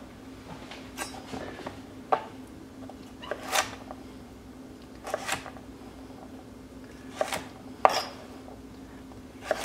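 Chef's knife cutting through peeled carrots and striking a wooden cutting board: sharp knocks every second or two, some in quick pairs, over a faint steady hum.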